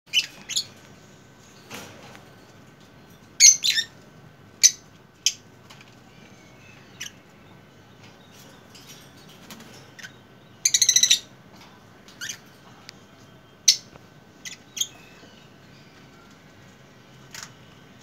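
Caged Alexandrine parakeets giving short, shrill calls at irregular intervals, with a quick chattering run of notes about eleven seconds in.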